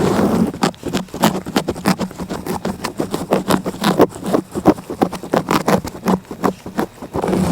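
A cat licking right at the microphone: quick rasping tongue strokes, about four or five a second, with a rustling brush against the mic at the start and again near the end.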